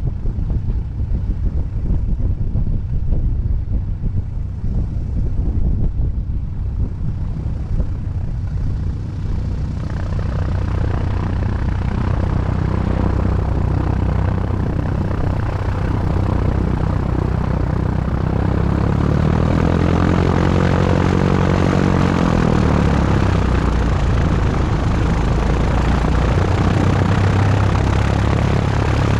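The Cessna 177RG Cardinal's four-cylinder Lycoming engine and propeller running at low taxi power, heard from a camera on the fuselage: a steady drone under a low rumble. It grows louder and brighter from about ten seconds in, and its pitch rises and falls briefly a little past the middle.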